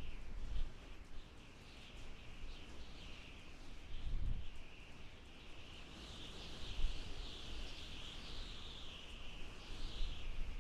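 Blizzard wind blowing in gusts: a high, wavering whistle that rises and falls over low, gusty buffeting.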